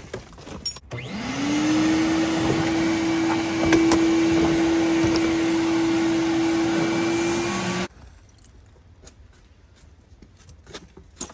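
Shop vacuum motor spinning up, running at a steady pitch with a loud rush of air, then cutting off suddenly; quiet handling noises follow.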